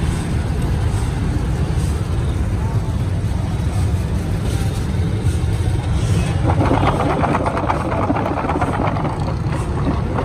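Steady low rumble of street traffic. From about six seconds in, a dense rustling clatter as flour-dusted raw potato sticks are tossed and mixed by hand in a plastic tub.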